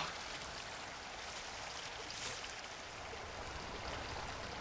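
Creek water running steadily, with one brief soft swish a little over two seconds in.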